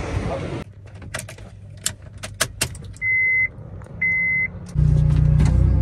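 Inside a Honda Civic: a few light clicks and knocks, then two short, high electronic beeps from the car. Near the end the engine starts and settles into a steady low hum.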